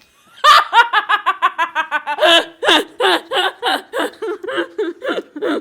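A person laughing hard: a quick run of loud pitched 'ha-ha' pulses starting about half a second in, slowing to spaced-out laughs toward the end.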